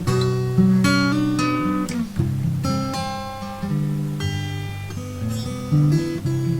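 Background music: acoustic guitar, picked and strummed, with chords changing every second or so.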